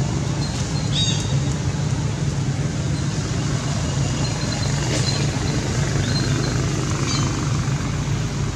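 Steady low motor rumble with a constant hum, like road traffic, and a few faint short high chirps about one, five and seven seconds in.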